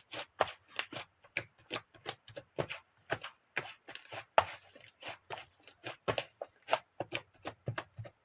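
Quick, irregular clicks and taps, about three to four a second, from utensils and dishes being handled while preparing strawberry bingsu.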